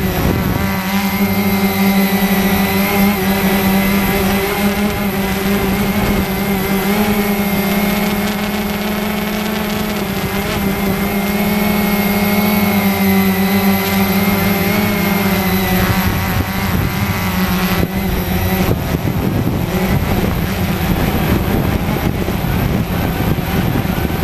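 Cheerson CX-20 quadcopter's four brushless motors and propellers whirring in flight, heard close up from the camera on the airframe. The steady buzz wavers in pitch as the craft manoeuvres, and its tone shifts and roughens about eighteen seconds in.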